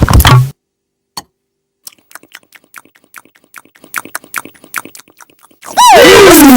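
Cartoon eating sound effects: scattered soft wet clicks and smacks for a few seconds. Near the end comes a sudden, very loud, distorted sound whose pitch swoops sharply down.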